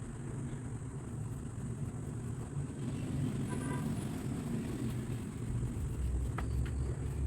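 A steady low rumble, growing stronger near the end, with two sharp clicks shortly before the end.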